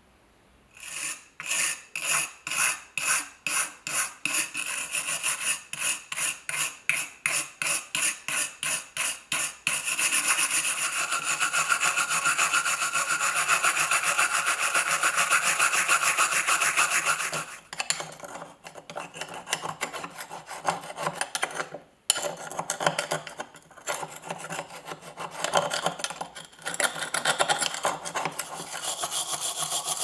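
A stiff hand brush scrubbing a metal belt buckle. It starts with quick, regular back-and-forth strokes, about two and a half a second. After about ten seconds it becomes continuous fast scrubbing, and in the last third it breaks into uneven strokes.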